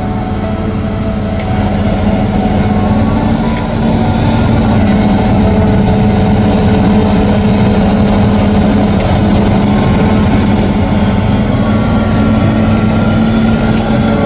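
Steady drone of a motor vehicle's engine, which grows louder and rises slightly in pitch about two seconds in.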